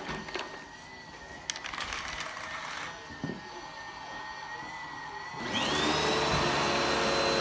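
A vacuum cleaner switched on a little over five seconds in: its motor spins up with a rising whine and settles into a steady run. A few light clicks come before it.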